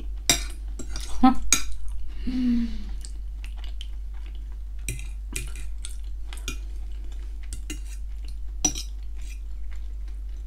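A metal fork clinks and scrapes against a ceramic dinner plate as it cuts into and scoops up ham gratin. There is a quick run of sharp taps in the first two seconds, then separate clicks every second or so, over a steady low hum.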